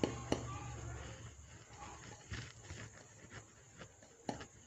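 Rice flour poured from a bowl into a plastic basin: a faint, soft rustle with a few light taps of the bowl, about three in all.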